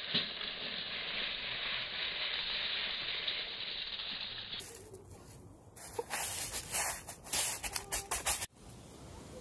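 Coarse sea salt poured by hand onto aluminium foil, a steady hissing patter of falling grains. After about five seconds it gives way to a run of crunches and crackles as hands press the salt bed flat on the foil.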